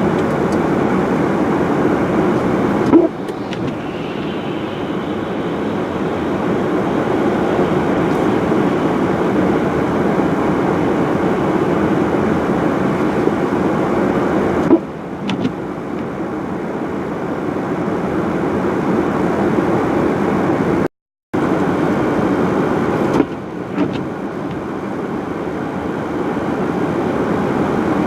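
Steady road traffic noise with no clear engine note. It breaks off abruptly three times with a click, and each time starts quieter and slowly swells again, with a short dropout in between.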